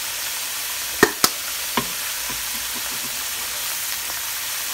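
Potato wedges deep-frying in hot oil in a cast-iron skillet: a steady sizzle, with three sharp clicks between one and two seconds in.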